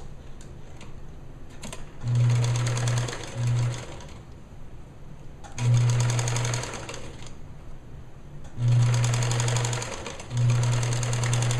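Kenmore electric sewing machine top-stitching lace along a sleeve edge, running in several short runs of a second or two, stopping and starting between them.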